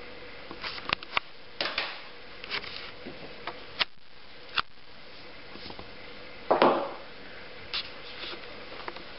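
Colored pencil scratching on paper on a wooden tabletop in short strokes, with a few sharp clicks and taps and one louder, longer rustle about six and a half seconds in, over a faint steady hum.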